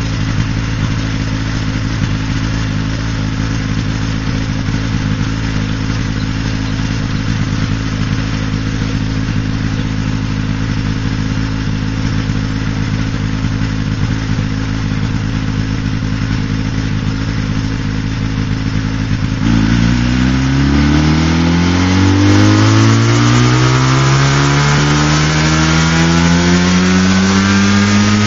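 Engine of a single-seat ultralight helicopter idling steadily, then about two-thirds of the way through it revs up smoothly, its pitch climbing over several seconds as the rotor spins up.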